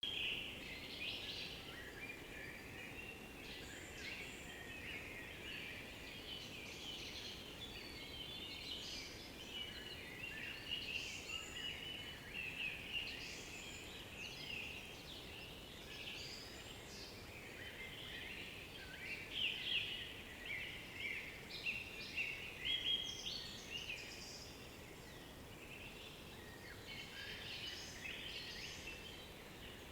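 A chorus of mixed European woodland songbirds singing over one another: many overlapping high chirps and song phrases over a faint hiss, louder in short bursts around the middle and again about two-thirds of the way in.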